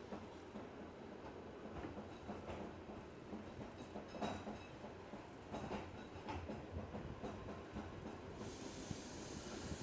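Wengernalpbahn rack-railway train running slowly, heard from on board: a steady low rumble with irregular clicks from the wheels on the track. An even hiss comes in near the end.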